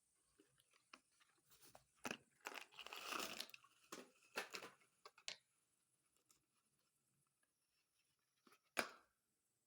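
Slate pencils being bitten and chewed close up: a run of sharp, brittle crunches between about two and five and a half seconds in, then a single loud crunch near the end.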